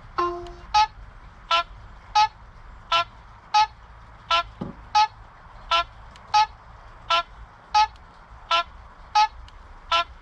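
NIU NQi Sport electric moped's turn-signal indicator sound: a short pitched beep repeating evenly, about one every 0.7 seconds.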